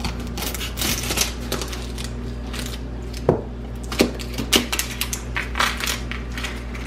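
Kitchen prep handling: irregular clicks and knocks of utensils and dishes, a few louder knocks in the middle, over a steady low hum.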